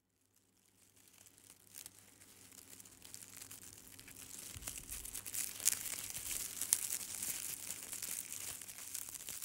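A crackling, crinkling noise made of many small clicks, fading in, loudest from about the middle with a few sharper clicks, and easing off near the end, over a faint low steady hum.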